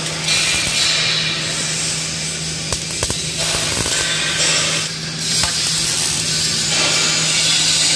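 MIG welding on a steel-tube frame: the arc crackles and sizzles in runs with short breaks between welds, over a steady low hum.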